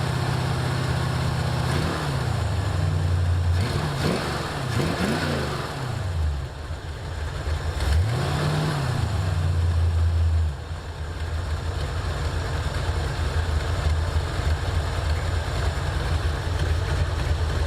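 Carbureted engine of a 1984 Ford Mustang GT350 revved several times in the first ten seconds, then idling steadily. It has an exhaust leak at the headers.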